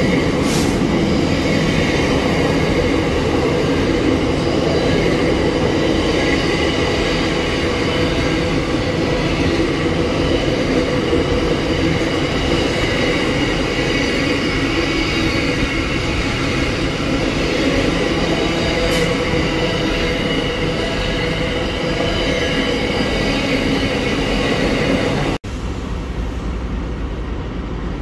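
Container freight train rolling past at close range: a steady rumble and clatter of wagon wheels on the rails, with a thin wheel squeal running through it. About 25 seconds in it cuts off abruptly and a steadier, deeper rumble of a Pacific National NR class diesel locomotive's engine takes over.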